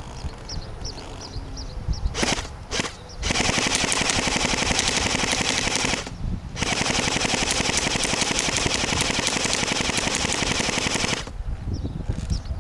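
Airsoft replica of a 1928 Thompson submachine gun firing in full-auto mode, its metal gearbox cycling rapidly. It fires two short bursts, then two long bursts of about three and four and a half seconds with a brief pause between them.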